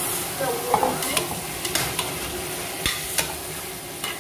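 A utensil stirring raw chicken pieces in a stainless-steel pressure cooker pot, knocking and scraping against the metal several times, over a steady frying sizzle.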